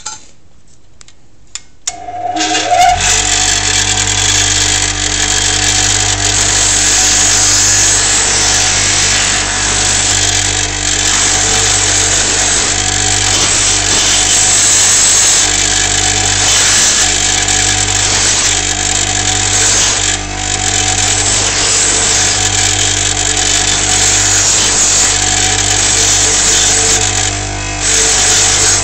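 An electric power tool starts about two seconds in, its motor whining up to speed, then runs steadily and loudly while grinding down a hacksaw-blade lock pick, taking the paint off its side and thinning it. The noise dips briefly a few times as the blade is worked against it.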